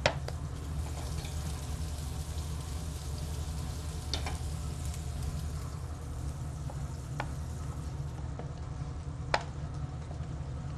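Steady sizzle of filet mignons searing in a pan, over a low hum, with a few sharp knocks of a wooden rolling pin on a wooden board.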